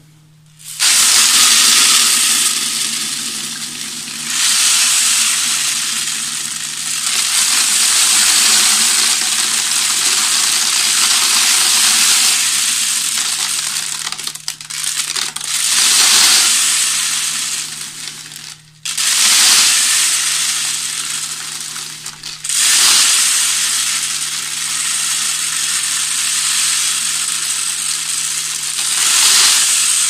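Dry bird seed poured from a plastic pot through a rolled paper funnel into a plastic bottle: a continuous rattling hiss of grains sliding over the paper and falling into the bottle, stopping briefly a few times.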